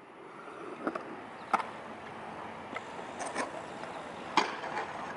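Freestyle scooter wheels rolling on a concrete skatepark, with several sharp clacks of the scooter hitting and landing on the concrete, the loudest a little over four seconds in.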